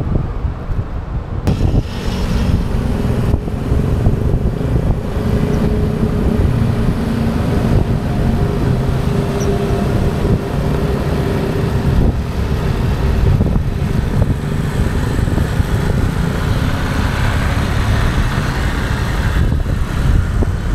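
Wind rushing over a handlebar camera's microphone on a moving bicycle, mixed with the engines of motorbikes and cars in the surrounding road traffic. A steady engine hum from a motor scooter close ahead stands out through the middle.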